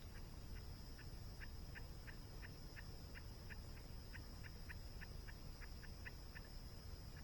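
A rapid series of short, high chirping calls from a small animal, about three a second, over a steady low rush of falling water and a steady high hiss.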